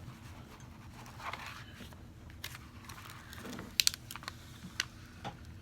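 Hands handling a small diamond painting canvas: soft rustling with scattered light clicks, and two sharp clicks close together nearly four seconds in.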